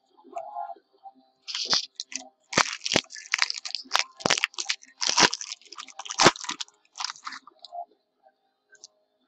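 Crackling and crinkling of trading-card packaging being handled, a quick run of sharp crunches lasting about six seconds.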